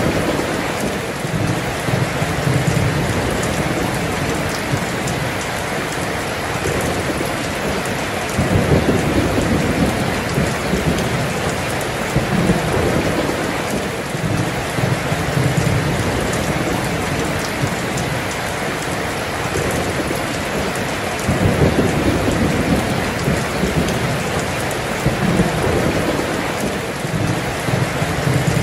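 Heavy rain pouring steadily, with low rolls of thunder that swell up twice, about a third of the way in and again past two-thirds.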